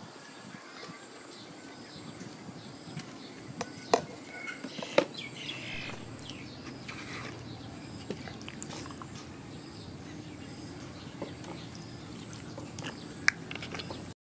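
Quiet outdoor background with faint bird chirps and a few sharp knocks, the loudest about four and five seconds in.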